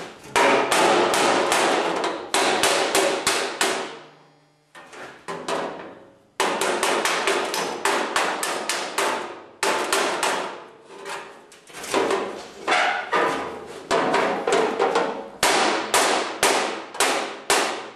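Body hammer striking the dented sheet-steel fender of an Allis-Chalmers 310 tractor against a hand-held dolly, a few sharp metallic blows a second in quick runs, with a short lull about four seconds in. This is hammer-and-dolly dent repair, the finish banging that straightens the fender's bends.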